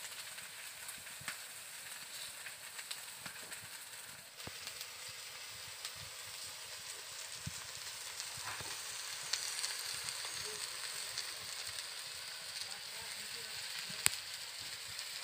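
Flat beans and potato pieces sizzling in oil in an aluminium wok over a wood fire: a steady hiss with scattered small crackles, and one sharp click near the end.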